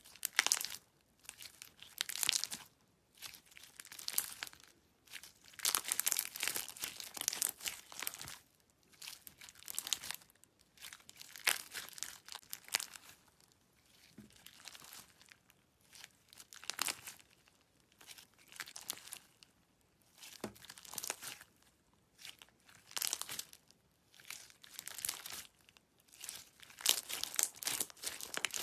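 Hands squeezing, stretching and pressing clear glitter slime packed with plastic beads and charms. The sticky, crackly slime sounds come in repeated squeezes, one every second or two.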